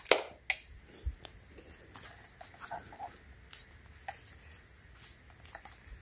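Hands handling a plastic-wrapped 36-volt e-bike lithium battery pack, picking it up and turning it over: scattered light clicks and taps. The sharpest click comes right at the start.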